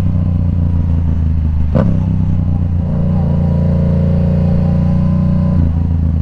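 Yamaha R7's 689 cc parallel-twin engine running through a Yoshimura AT2 full exhaust system while the bike is ridden at a steady pace. There is a sharp click about two seconds in, and the engine note shifts slightly near the end.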